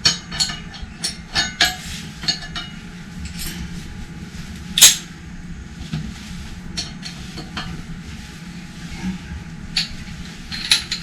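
Metal hand tools clinking and knocking in irregular sharp clicks, with one louder clank about five seconds in.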